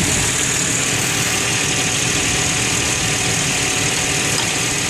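2008 Ford Explorer engine idling with a steady high-pitched squeal from the front of the engine, with the A/C running at full blast. The owner rules out the A/C compressor as the source of the squeal and suspects the fan clutch.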